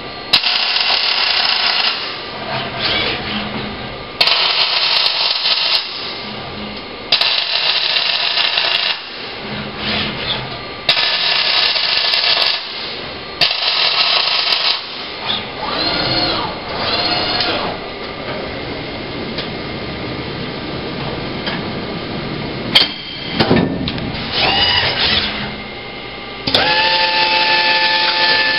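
Robotic MIG arc welding by an OTC welding robot: a run of short welds, each a dense crackling hiss lasting about one and a half to two seconds, five of them in the first fifteen seconds with short pauses between. Rising and falling whines from the robot's servo motors come between later welds, and a steadier machine whine starts near the end.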